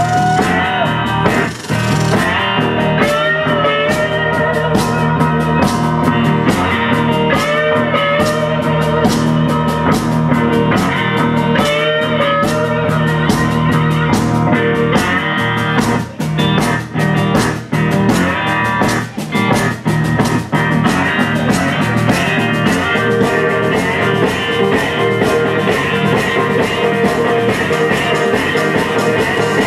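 Live blues-rock band playing an instrumental passage: electric guitar with sliding, bending notes over drums and busy percussion. Between about a third and two thirds of the way in, the band hits several short stop-time breaks before driving on.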